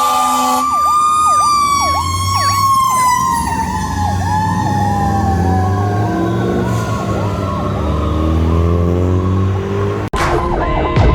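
Fire engine sirens: an electronic siren yelping in fast, repeated sweeps over a Federal Q2B mechanical siren that winds slowly down in pitch. A diesel engine runs underneath. A steady horn-like tone cuts off just after the start, and about ten seconds in the sound breaks off sharply into a different siren pattern.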